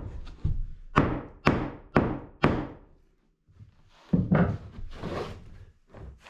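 Hammer blows on wooden concrete form boards as the form is knocked off a cured slab: four sharp strikes about half a second apart, then a rougher run of knocks and clatter.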